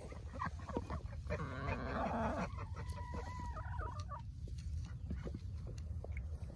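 Backyard hens clucking and calling, with one drawn-out call about three seconds in; the calls thin out in the second half.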